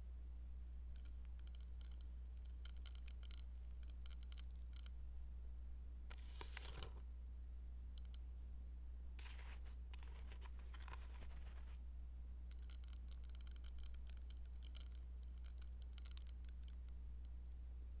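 Faint, quick clicking and crackling of a hand picking at lint and crunchy debris on carpet by the floor nozzle of a switched-off upright vacuum, in two runs near the start and from about two thirds in, with soft rustling between, over a steady low hum.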